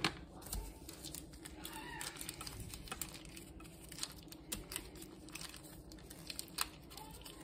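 Quiet handling of a foil-wrapped block of cream cheese at a stainless steel mixing bowl: a sharp click at the start, then faint crinkling of the foil wrapper and a few light clicks over a low steady hum.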